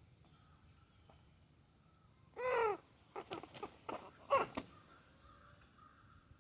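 Freshly beheaded rooster: air forced out through its body gives one short, harsh, croaking squawk, followed by a quick series of sharp knocks and a second brief croak as the headless body twitches.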